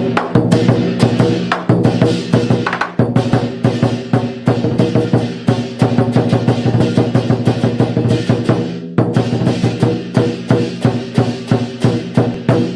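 Lion dance percussion music: a fast, driving drum beat with dense strikes and crashes over a steady low ringing.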